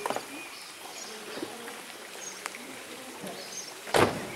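Outdoor street ambience with small birds chirping now and then, and one sharp thump about four seconds in.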